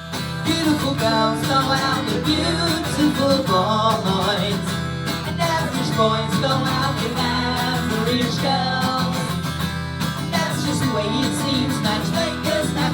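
Band music with strummed acoustic guitar over a steady low bass.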